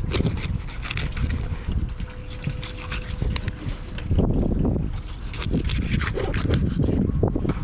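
Wind buffeting the microphone on a fishing boat at sea, with a steady low rumble from the boat and the water.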